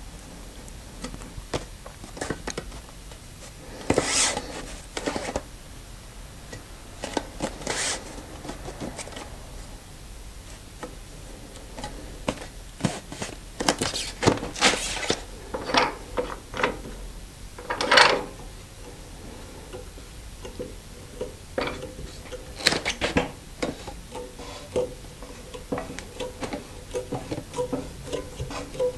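Irregular knocks, rubs and clicks of a screen-printing screen and its frame being shifted by hand on the press while the screen is lined up in register.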